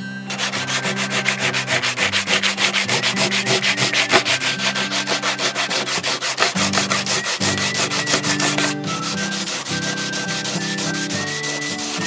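Coarse-grit sandpaper rubbed back and forth by hand over a wooden tabletop in quick, even strokes, several a second, smoothing fuzzy, raised grain. The strokes stop briefly about two-thirds through, then carry on a little softer.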